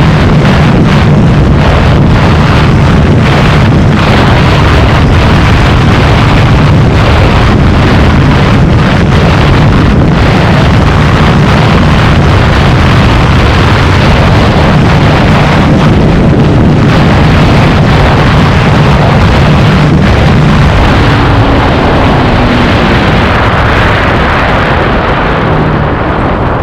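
Hero Xtreme 160R's single-cylinder engine held at high revs at full throttle near its top speed of about 118 km/h, with wind rushing past the microphone. The engine eases off near the end.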